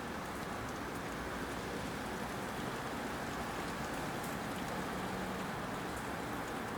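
Hail falling steadily, a continuous hiss with scattered sharp ticks of hailstones striking.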